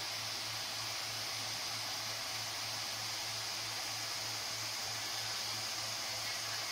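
Cooling fans of an ASUS ROG Zephyrus G16 gaming laptop running: a steady airy whoosh with a low hum underneath.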